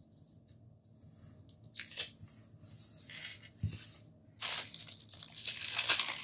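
Paper handling on a tabletop: a sticker sheet crinkling and a soft tap, then loud rustling and sliding as sticker-book pages are moved and slid aside, loudest near the end.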